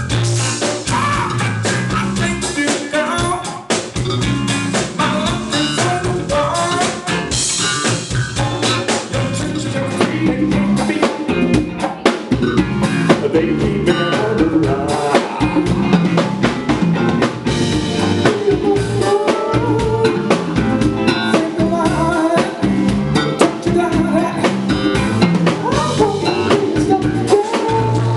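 A band playing with a full drum kit keeping a steady beat, rimshots on the snare, and a voice singing over it.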